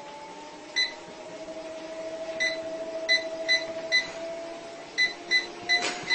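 A run of short, high electronic beeps, about nine of them, coming at irregular intervals and more closely together in the second half. Under them runs a steady tone that slowly rises in pitch.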